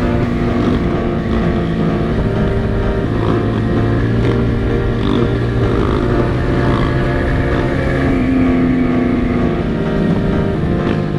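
Motorcycle engine running steadily while riding, its note shifting slightly as the throttle changes.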